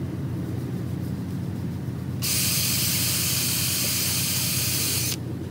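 A steady low machine hum, with a loud hiss of air or spray that starts about two seconds in and cuts off about three seconds later.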